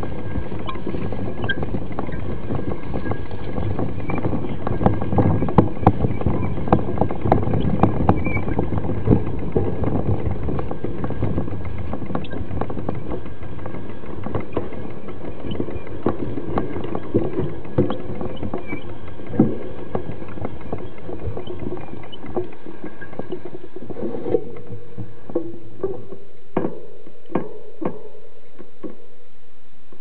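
Mountain bike riding fast over a rough dirt trail, heard from a camera on the bike: a steady rumble with frequent rattling knocks. About 25 seconds in, the rumble fades and only a few scattered knocks remain as the bike slows.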